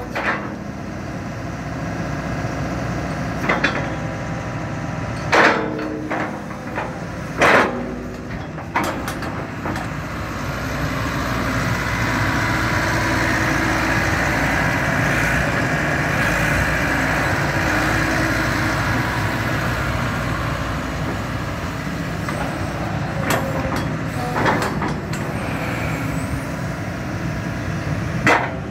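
Samsung SE130 LCM-2 excavator's diesel engine running while its hydraulics slew the upper structure and work the boom. There are several sharp metallic clanks in the first few seconds and again near the end, and the engine runs louder under hydraulic load through the middle stretch.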